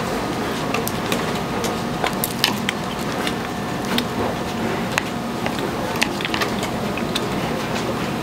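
Market stall background noise with scattered sharp clicks and taps of metal utensils, about one or two a second, over a faint steady hum.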